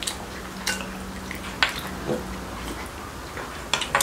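Eating at the table: a handful of light, sharp clicks of spoons and chopsticks against bowls, with soft sipping and chewing between them. A faint steady hum runs under the first half.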